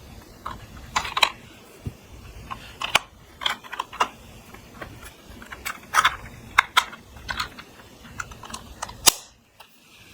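Slime being worked by hand, making irregular sharp clicking pops, a few a second. They stop abruptly a little after the loudest pop, near the end.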